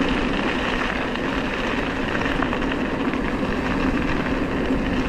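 Steady rush of wind and tyre noise from an electric mountain bike rolling along a dirt trail, with a constant low hum running under it.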